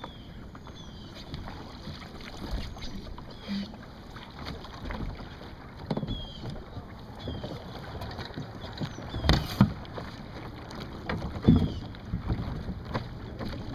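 Scorpion sailing dinghy's hull knocking and thumping as a person climbs aboard and moves about in it, handling the mast, over wind on the microphone; the loudest thumps come about nine and eleven and a half seconds in.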